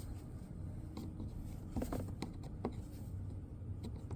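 Screwdriver tip scraping and clicking against the plastic window-switch housing as it is worked into the gap to pry the switch out, with a few sharp clicks around the middle.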